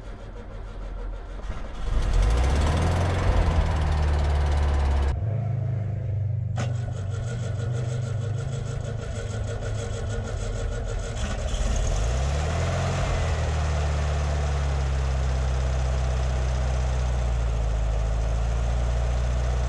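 1976 VW Beetle's air-cooled flat-four engine cranking on the starter, catching about two seconds in, then running, with a brief rise in revs around twelve seconds in before it settles to a steady run. A first start after recommissioning, running with a bit of a misfire and audible tappets, which the owner puts down to ignition timing and valve clearance to be checked.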